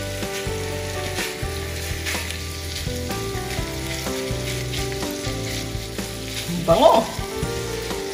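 Ribeye steak frying in a hot pan of olive oil and butter with garlic and onion, sizzling steadily with small crackles.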